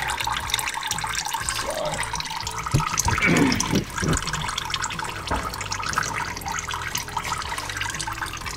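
Old engine oil pouring from the sump drain of a Toyota 80 Series Land Cruiser into a drain pan, a steady splashing stream.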